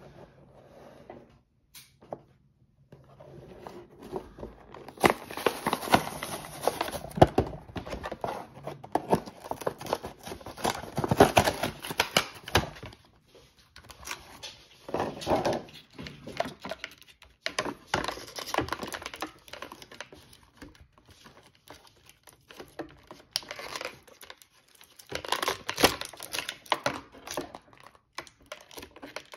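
Plastic toy packaging being torn open and handled by hand: a clear plastic blister pulled from its cardboard card and the clear plastic bags around the figures crinkled. Irregular bouts of crinkling, crackling and tearing with sharp clicks, loudest a few seconds in and again near the end, with quiet pauses between.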